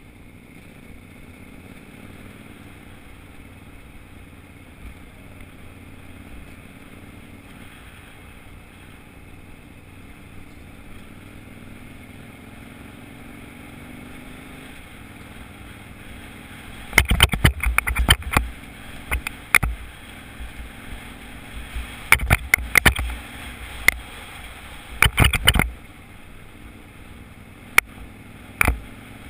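Off-road motorcycle ride heard through a helmet camera's housing: a steady muffled engine drone, broken from a little past halfway by clusters of sharp knocks and rattles as the camera jolts over the rough dirt track.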